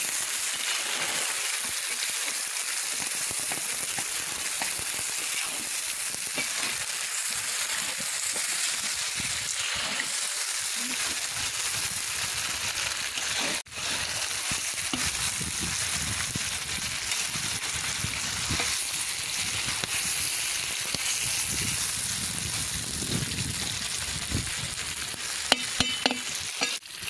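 Beef chunks and onions sizzling steadily in hot oil in a kazan, stirred now and then with a metal skimmer. A few sharp clicks sound near the end.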